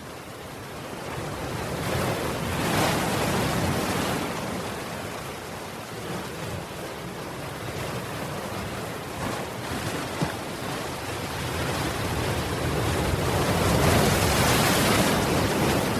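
Ocean waves breaking and washing up over a seawall, a steady rush of surf that swells loudest about three seconds in and again near the end.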